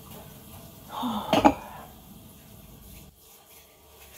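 A short clatter of crockery about a second in, against low kitchen room noise.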